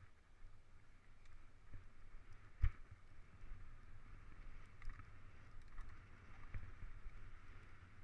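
Mountain bike rolling down a rough dirt singletrack: a steady rumble and hiss of tyres and rattling bike, with a sharp knock about two and a half seconds in and lighter knocks later as it jolts over bumps.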